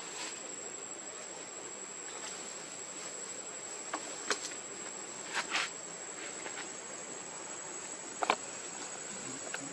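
Steady high-pitched drone of insects, with a few short sharp clicks about four, five and a half and eight seconds in.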